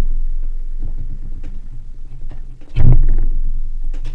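Old twine wick being dragged out of an antique petrol lighter's fibrous filling with pliers, a rough scraping rub with a low rumble. It comes in two pulls, one at the start and a stronger one about three seconds in, each fading slowly.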